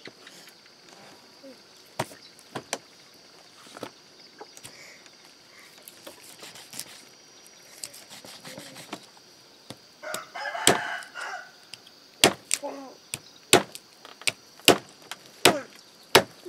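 Cleaver chopping meat and bone on a wooden chopping block: a few scattered strikes, then a quicker run of about two chops a second in the second half. A rooster crows about ten seconds in.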